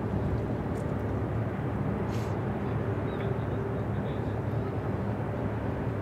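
Steady low mechanical rumble with a droning hum, the sound of a large cruise ship's engines and funnel carried across the water.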